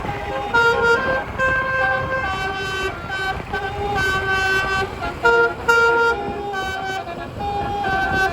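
Indonesian telolet bus horn, a 12-note set of roof-mounted horn trumpets, playing a tune: a run of held horn notes stepping up and down in pitch every half second or so, over a low vehicle rumble.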